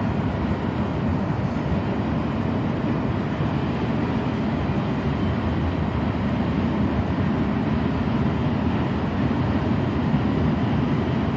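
Norfolk Southern freight train passing, its wheels running steadily over the rails with a continuous rumble that does not let up.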